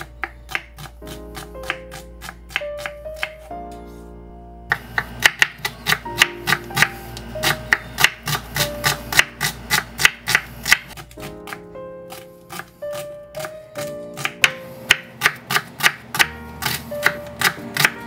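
Background music, with a kitchen knife dicing small red onions on a bamboo cutting board underneath it: a quick, regular run of blade strikes against the wood.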